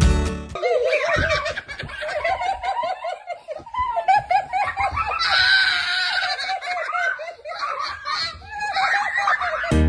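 A person laughing hard in rapid, high-pitched bursts. Guitar music cuts off about half a second in and comes back right at the end.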